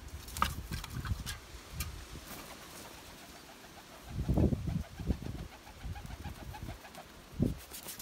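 Domestic pigeons cooing a few times, low and swelling, over wind rumbling on the microphone, with a few sharp clicks in the first couple of seconds.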